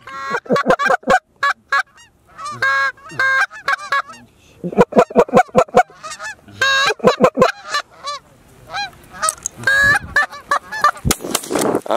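A flock of Canada geese honking, many short calls overlapping and repeating, with a few sharp knocks near the end.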